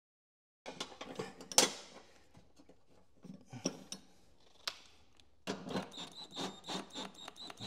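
Metal parts of a mower deck clinking and knocking as a pulley and belt are handled by hand. Then, from about five and a half seconds in, a Bauer cordless drill runs on the pulley's retaining nut to snug it down, giving a thin steady whine with rapid even clicking.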